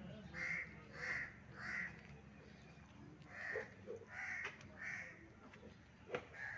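A bird calling outdoors: three calls about half a second apart, a pause, then three more. A sharp click about six seconds in.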